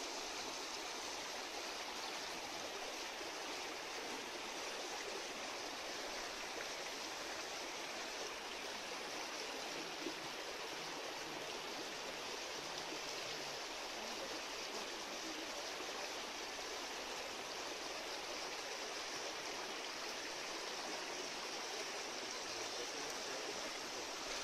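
Steady, even rush of moving water in a goldfish tank.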